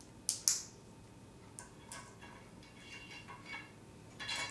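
Two sharp clicks as the small hinged plastic backpack quiver of a 1984 G.I. Joe Storm Shadow figure is snapped, then light ticking and clicking of hard plastic toy parts being handled, and a louder clatter near the end as they are put down on a glass tabletop.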